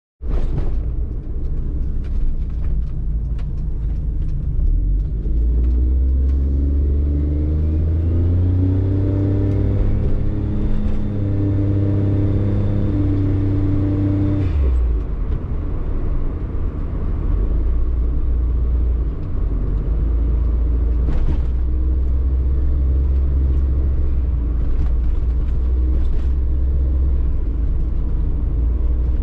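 A car's engine and road noise while driving, on engine oil treated with a molybdenum additive. The engine note rises steadily from about six seconds in as the car accelerates, drops suddenly about halfway through, then settles into a steady low drone.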